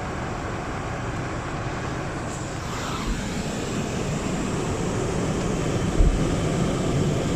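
A car being driven: steady road and engine rumble that slowly grows louder, with a low thump about three seconds in and another about six seconds in.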